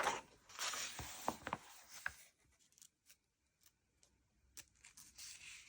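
Pages of a paper colouring magazine being turned and handled, a soft rustle with a few small ticks in the first two seconds, then a fainter rustle near the end.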